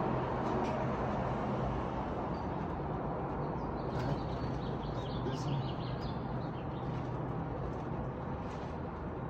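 Steady outdoor rumble of road traffic. A few short bird chirps come through about four to six seconds in.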